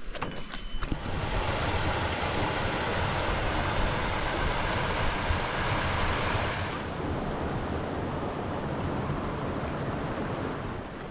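Steady rushing of a rainforest creek's flowing water, turning duller and a little quieter about seven seconds in.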